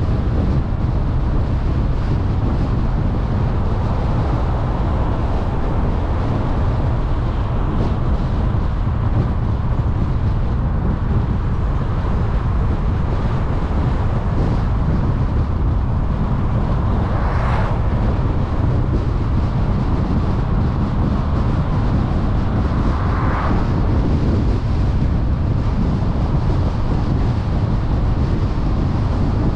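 Car driving along a road: a steady low rumble of tyres, engine and wind noise, with two brief swells of louder noise a little past the middle.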